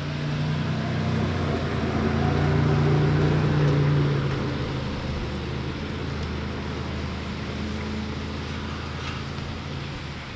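A vehicle engine hums steadily, swelling to its loudest a few seconds in and then slowly fading, as if passing by. A few faint clicks are heard as potato slices are set into the cast iron pot.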